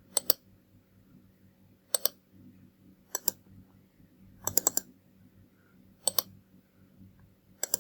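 Computer mouse buttons clicking: sharp clicks in pairs every second or two, with a quicker run of about four clicks, a double click, around the middle.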